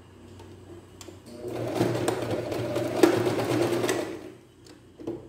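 Domestic electric sewing machine stitching a short seam: it starts about a second and a half in, runs steadily for about two and a half seconds, then stops.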